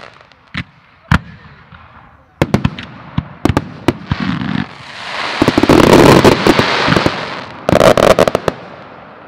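Daylight fireworks firing and bursting: a few separate sharp bangs, then a quick run of bangs from about two and a half seconds in, swelling about halfway through into a dense, loud rushing barrage. A last flurry of bangs comes near the end and fades away.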